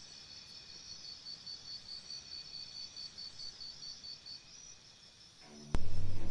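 A faint stretch with a high-pitched chirp pulsing several times a second, like a cricket. Near the end, background music cuts in suddenly with a loud low hit.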